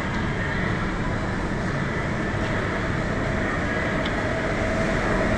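Steady low rumbling background noise of a supermarket aisle by the refrigerated meat cases.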